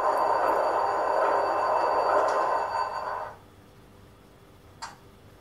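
ESU LokSound decoder playing a GE 7FDL-16 diesel engine sound through a model locomotive's small speaker, running steadily and then cutting off abruptly about three seconds in as the engine shuts down. A faint click follows near the end.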